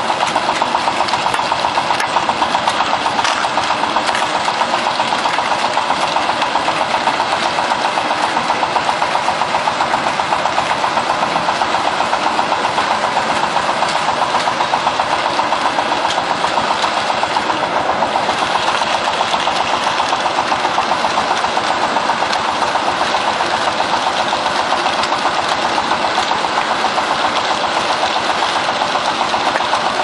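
Concrete mixer running with its drum turning: a steady mechanical noise with a fast, even pulsing.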